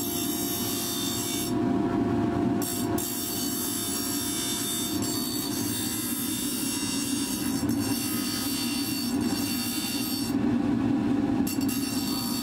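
Bench grinder running while a steel bar is ground against its wheel to shape a woodturning tool blade: a steady hum under the hiss of steel on the wheel. The high hiss drops away twice, for about a second each time.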